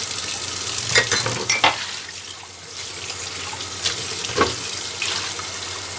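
Kitchen tap running steadily into the sink as drinking bottles are rinsed, with a few sharp knocks of the bottles against the sink and each other.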